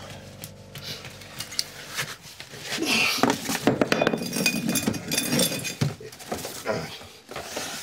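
Glass bottles clinking and knocking together as they are pulled out of a cardboard case, with short bright rings of glass from about two and a half seconds in.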